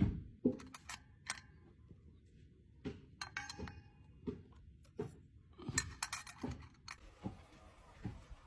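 Metal transmission parts clinking and knocking as they are handled during a rebuild: a string of short, irregular taps and clinks, with a brief ringing rattle a little over three seconds in and a quicker flurry of knocks around six seconds in.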